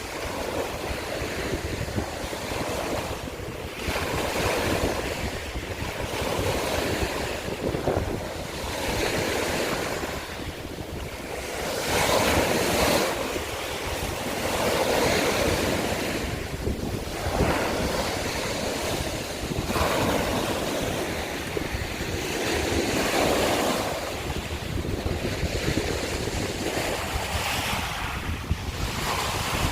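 Sea waves breaking and washing over a shore of broken scallop shells, the wash swelling and falling every few seconds. A steady low rumble of wind on the microphone runs underneath.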